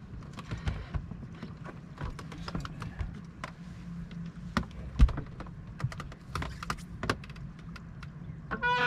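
Scattered, irregular sharp clicks and taps, with one louder knock about five seconds in, over a steady low hum. A short pitched call comes just before the end.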